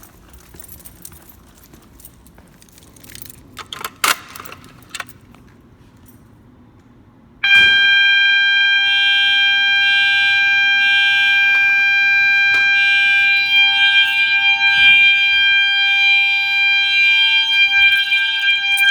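Fire alarm notification appliances on a Simplex 4010 system start up suddenly about seven seconds in, after a few seconds of quiet with small handling clicks. The alarm is a loud, steady electronic tone with a second, pulsing alarm tone layered over it.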